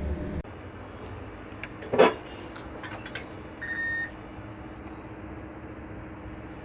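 A low hum cuts off just after the start. Then comes a sharp knock, and about a second and a half later a digital multimeter gives a single short electronic beep.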